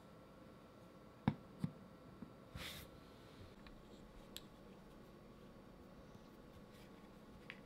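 Light handling sounds of a vinyl Funko Pop figure: two small knocks close together about a second in, a short brushing rustle just after, then a few faint scattered clicks.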